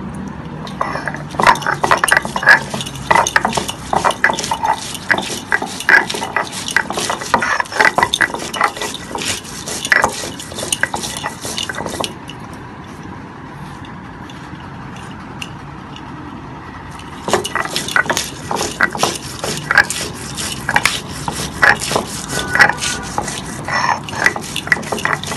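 Stone roller (nora) crushing and grinding green chillies and cumin seeds on a flat stone grinding slab (shil-nora): repeated gritty scraping strokes and knocks of stone on stone. The grinding comes in two spells, with a pause of several seconds about halfway.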